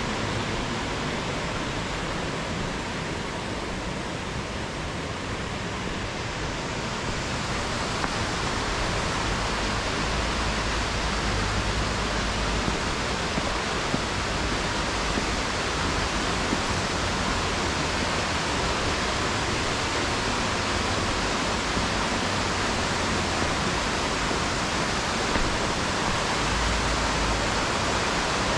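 Steady rushing of wind over the microphone, with tyre noise, on a moving bicycle. It grows louder about a quarter of the way in as the bike picks up speed, with uneven low buffeting underneath.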